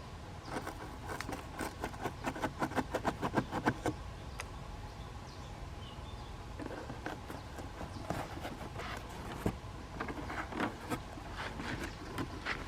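A quick run of light taps and clicks that speeds up and grows louder over the first few seconds, then further scattered clusters of taps, over a faint steady high hum.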